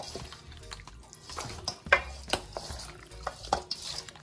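Wet stirring and scattered clicks of a utensil working through sticky, sauced food in a pan or bowl, with background music.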